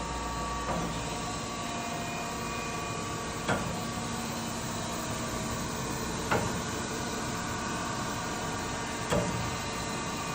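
Chevalier FSG-3A1224 automatic surface grinder running with a steady hum. A sharp knock comes about every three seconds, four times in all, as the reciprocating table reverses at the end of each stroke.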